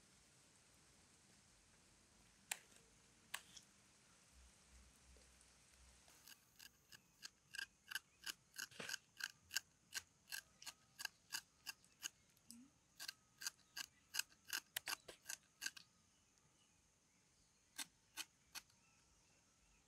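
Kitchen knife scraping the rind of a lime to take off the zest, in short sharp strokes. A couple of single scrapes come first, then a steady run of two or three strokes a second for about ten seconds, then two more strokes near the end.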